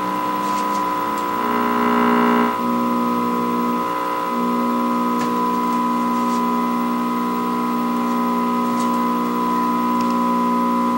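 Music of long held keyboard chords playing through the small speaker of a 1960s Canadian Marconi 11-inch portable vacuum-tube TV tuned to a broadcast. The chord swells briefly about two seconds in.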